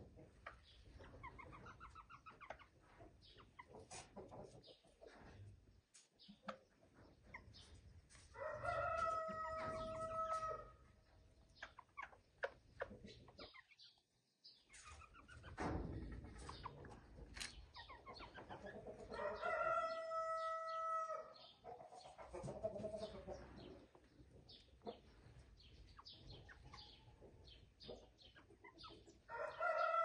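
Bantam roosters crowing three times, each crow about two seconds long and roughly ten seconds apart, the last starting near the end, with soft clucks and scattered ticks between the crows.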